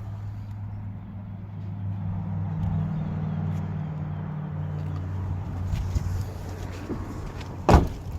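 A steady low engine hum, then scattered clicks and one loud sharp thump near the end, like a car door being shut.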